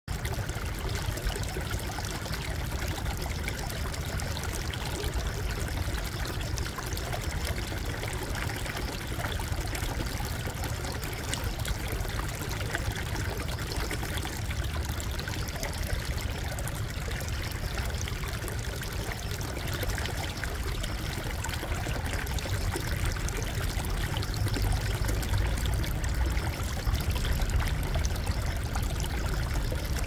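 Water of a small brook pouring and trickling steadily over a low stone step between rocks, with a low rumble underneath that grows a little near the end.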